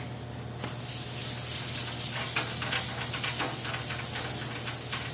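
400-grit sandpaper rubbed by hand over wood sealed with dried sanding conditioner: a hissing scrape starts about a second in and goes on in quick back-and-forth strokes.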